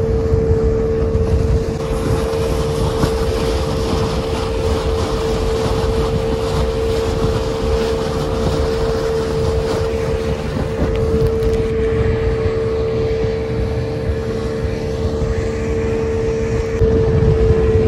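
Yamaha outboard motor running steadily at speed, one unchanging pitch, pushing an open fibreglass fishing boat through choppy water, with the rush of water and spray along the hull and wind on the microphone.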